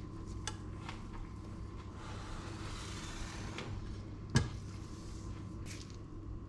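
A metal spoon stirring salad in a stainless steel bowl, with a few light clicks, then one sharp knock as the bowl is set down on the countertop about four seconds in, over a steady hum.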